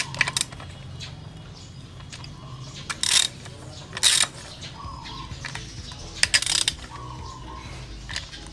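Ratchet wrench clicking in four short bursts, the way it sounds when nuts are run down during engine assembly.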